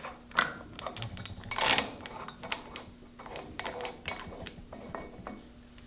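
Light metallic clicks, taps and short scrapes of small hand tools being handled and worked at the mower's spark-plug hole, with a louder scrape just under two seconds in.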